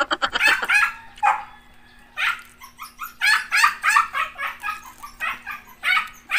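Laughter trailing off at the start, then a dog barking repeatedly in quick runs of short barks.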